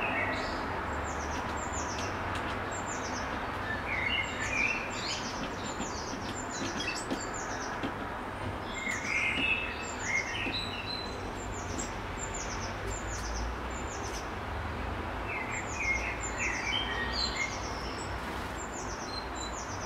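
Small songbirds chirping: bunches of short, high, falling notes repeated again and again, with lower, rougher chirps a few times, around 4, 9 and 17 seconds in.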